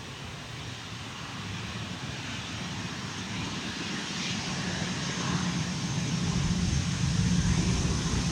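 Jet noise from a Boeing 737 MAX 8's CFM LEAP-1B turbofan engines, growing steadily louder as the airliner approaches.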